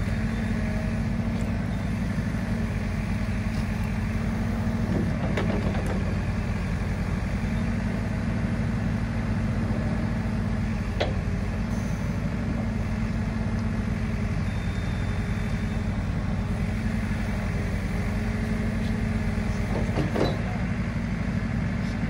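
JCB 4CX backhoe loader's diesel engine running steadily while the backhoe arm digs out a foundation trench. A few sharp knocks come through, near 5 s, 11 s and 20 s.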